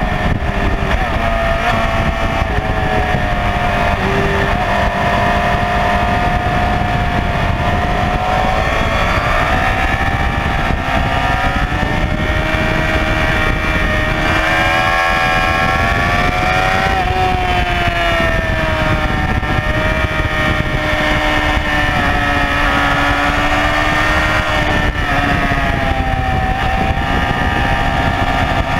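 Honda CBR954RR sportbike's inline-four engine running hard on track. Its pitch rises and falls several times with throttle and gear changes, with a long climb in pitch about halfway through.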